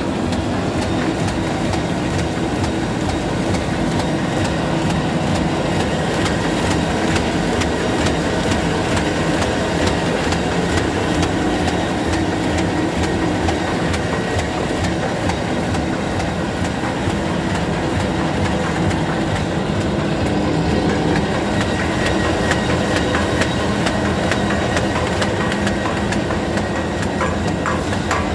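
Roll-to-sheet separator machine running: a steady mechanical hum with a fast, even clicking clatter as the printed sheets are fed through and stacked.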